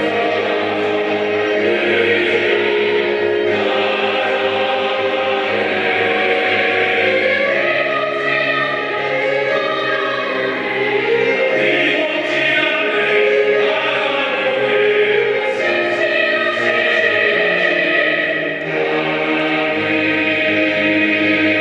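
Choir singing a sacred anthem in Korean, with sustained chords held and changing every few seconds.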